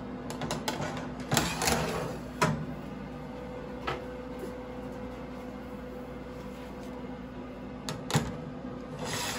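Metal baking trays being slid onto the wire racks of a convection oven: scraping and clanks of metal on metal, loudest about a second and a half in and again near the end, with scattered clicks over a steady low hum.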